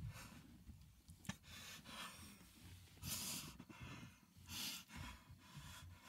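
A man breathing and sighing after crying: several separate breaths, the longest a little after three seconds in.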